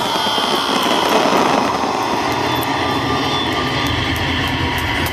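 Aerial fireworks crackling after a large white burst. The crackle thins after a second or two into a steady noisy rush with a few faint, sharp pops.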